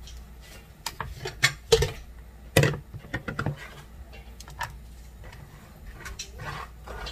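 Kitchen knife chopping vegetables on a plastic cutting board: a few sharp strikes, then a quick run of chops about three seconds in, followed by softer sounds of the cut pieces being gathered by hand.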